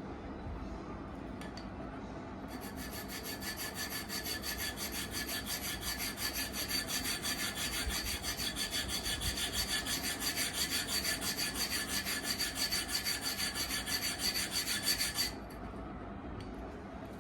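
Quick, even back-and-forth sanding strokes with abrasive paper, a few strokes a second. It starts a couple of seconds in and stops a little before the end. It is typical of roughing up a disc brake's pads or rotor to cure squealing.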